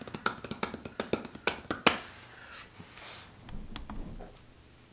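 A quick, irregular run of light clicks and taps that thins out after about two seconds, followed by a few fainter scattered clicks.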